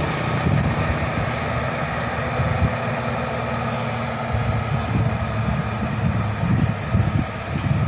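Loaded Hino 500 truck's diesel engine labouring at low speed as it climbs a steep hill under load, a steady low rumble that surges unevenly.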